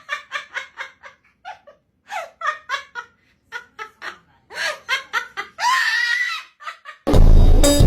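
An animal's laugh-like call: rapid runs of short, high yelping notes, about five or six a second, in several bursts, with a longer gliding cry about six seconds in.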